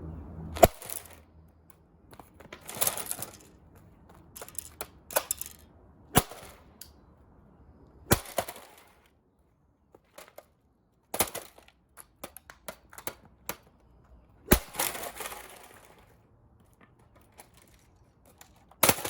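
A vintage golf club repeatedly smashing into a cheap plastic robot vacuum cleaner: about ten sharp cracks at uneven gaps of one to three seconds. Several strikes are followed by a brief clatter of breaking plastic, and one strike near the end is the loudest.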